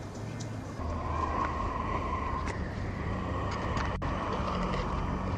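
Background music ends within the first second, then a steady low rumble of outdoor background noise with a faint hum takes over.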